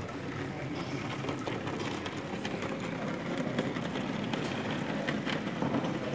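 A model steam locomotive running on the layout, hauling a rake of coal wagons along the track, heard over the steady murmur of a busy exhibition hall with occasional small clicks.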